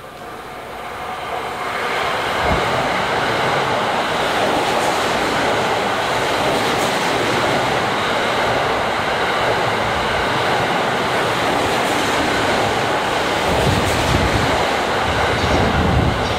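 Sunrise Seto/Izumo sleeper express, a 285-series electric train, passing through the station at speed close by without stopping. Its rush of wheel and air noise builds over the first two seconds, then holds steady and loud, with a deeper rumble joining near the end.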